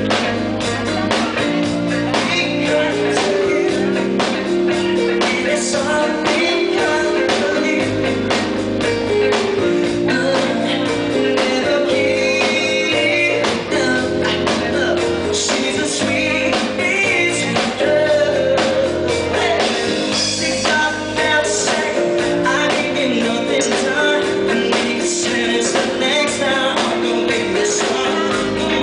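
Live rock band playing: electric guitars, bass and a drum kit keeping a steady beat, with singing over them.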